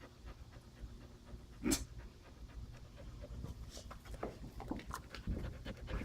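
A dog panting, with one sharp click a little under two seconds in.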